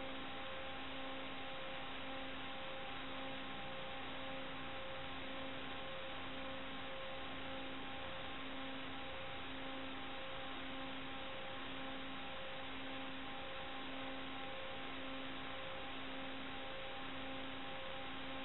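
Air-traffic-control radio feed between transmissions: a steady hiss of static with a low tone that pulses about once a second.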